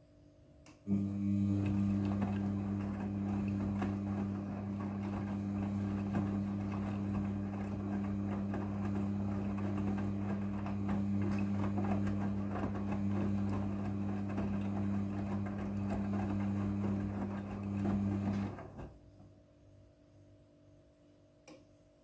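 Midea front-loading washing machine on its wash tumble: about a second in, the drum motor starts with a steady hum and the wet laundry sloshes and tumbles for about seventeen seconds, then the drum stops.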